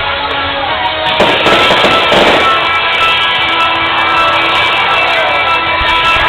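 Music playing with many steady notes, while fireworks crackle and fizz for about a second beginning roughly a second in.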